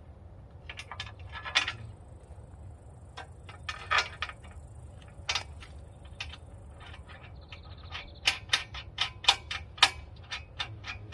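Sharp metallic clicks and knocks from handling and bolting galvanized steel sawmill track rails and their fasteners, scattered at first, then a quick series of louder clicks near the end.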